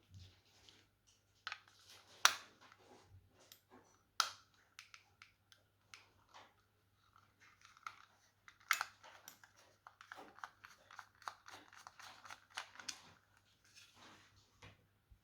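Plastic clicks, taps and light scraping as a Logitech M185 mouse's plastic shell and parts are handled and worked apart. A few sharper clicks stand out, and a busier stretch of small scratchy clicks comes past the middle.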